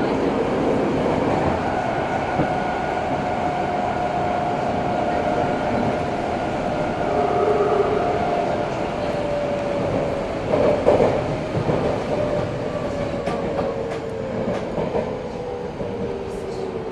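Running sound inside an Eidan 03 series subway car: the wheels rumble on the rails while the VVVF inverter motor whine falls steadily in pitch as the train slows. A burst of wheel clatter comes about eleven seconds in.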